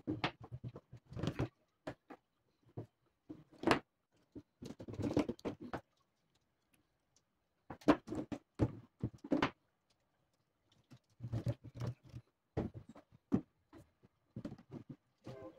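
Half-inch PVC pipes and elbow and tee fittings handled and pushed together on a wooden tabletop: irregular plastic clicks, knocks and scrapes, with a couple of short pauses.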